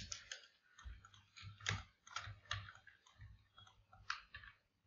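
Faint, irregular clicking of a computer mouse and keyboard, about a dozen clicks and taps spread unevenly.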